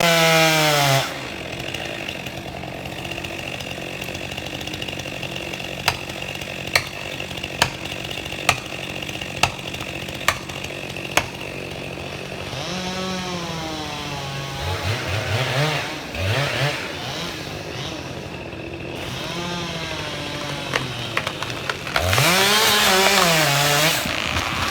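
Two-stroke chainsaw revving and dropping back to a lower, steady run, over and over. It is revved hard at the start and again near the end, with a series of sharp clicks about once a second in the middle.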